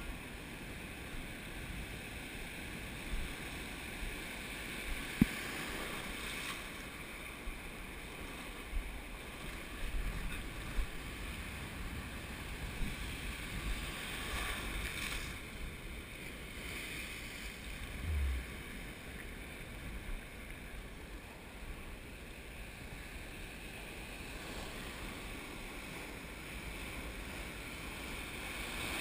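Breaking surf and foaming wash around a wader in the shallows, with wind rumbling on the microphone. There is a sharp knock about five seconds in and a few fainter ones.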